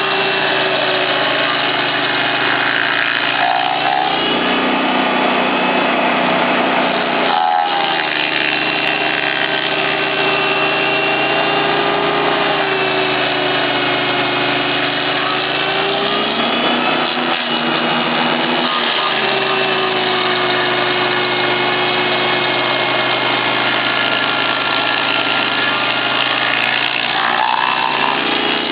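Bandit 2250XP stump grinder's 27 hp Kohler petrol engine running hard. Its pitch dips and recovers a few times as the cutter wheel takes load.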